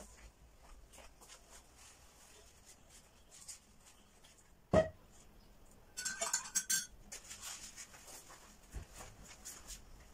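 A single thump about halfway through, then about a second of quick clinking and rattling of a metal spoon against a ceramic mug, with faint scattered ticks around it.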